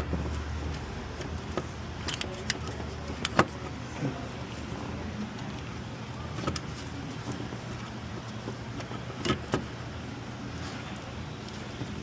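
Scattered metallic clicks and knocks of hand tools working on a car's engine bay, a few seconds apart, over a steady low hum.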